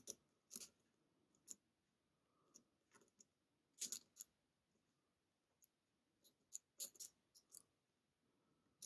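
Faint, scattered clicks of a lock pick and tension wrench working the pins of a custom-pinned pin-tumbler challenge lock, feeling for pins that have been overset; the clicks come in small clusters about four seconds in and again about seven seconds in.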